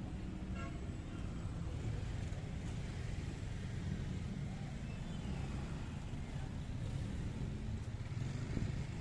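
Slow-moving street traffic of cars and motor scooters passing close by, a steady low engine rumble.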